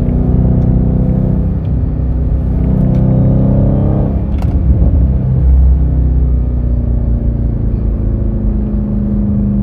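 Dodge Charger SRT Hellcat's supercharged 6.2-litre V8 under acceleration. The engine note climbs for a little over a second, drops sharply about four and a half seconds in, then settles into a steady lower drone.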